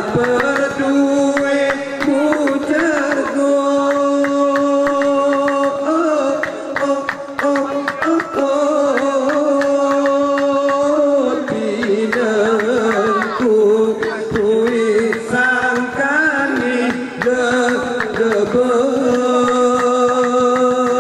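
Didong Gayo chant: men's voices singing long, slowly wavering held notes, with a shift to a new note about halfway. Underneath are dense rhythmic hand claps and beats on small cushions.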